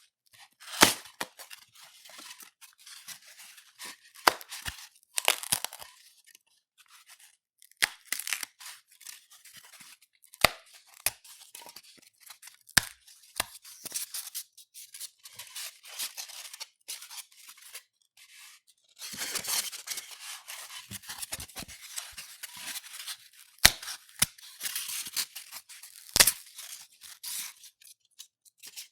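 Polystyrene (styrofoam) being rubbed and broken by hand: irregular squeaky, crackly rubbing with sharp snaps every few seconds. About two-thirds of the way through there is a longer stretch of continuous rubbing.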